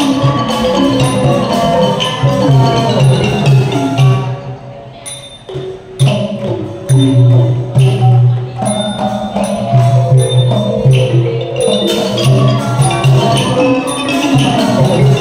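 Thai piphat mon ensemble playing, with the ringing of khong mon gong circles and ranat xylophone over a steady low pulse. The music thins to a quieter passage about four and a half seconds in, then returns at full strength a second and a half later.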